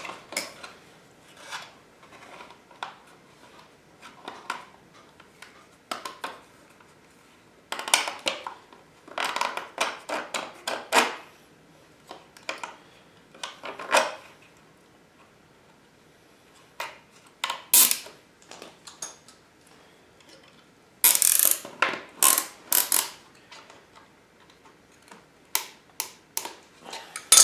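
Zip ties being threaded and pulled tight around a plastic swingarm protector: two runs of rapid ratcheting clicks, with scattered taps and knocks of the plastic guard being handled in between.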